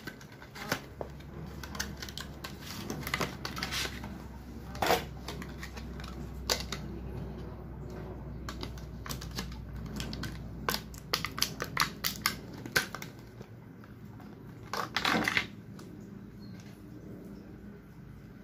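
Cardboard power-bank packaging being opened and its contents handled: an irregular string of light clicks and taps, with two longer rustling scrapes, one about five seconds in and one late on.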